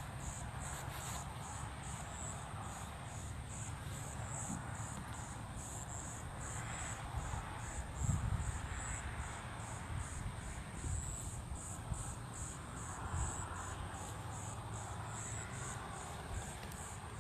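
A chorus of crickets chirping steadily, a high-pitched pulse repeating about two to three times a second, over a low rumble of wind on the microphone, with one dull thump about eight seconds in.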